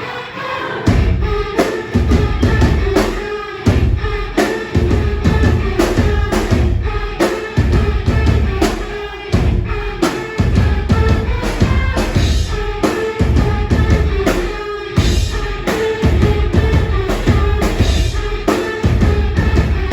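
Live noise-pop band playing loud: a heavy drum beat with a booming kick drum that comes in about a second in, with a woman singing over it.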